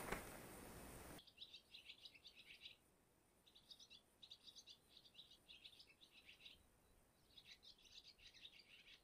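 A small songbird singing quick chirping phrases in three bouts, faint and high-pitched. It is preceded by about a second of rustling noise that cuts off suddenly.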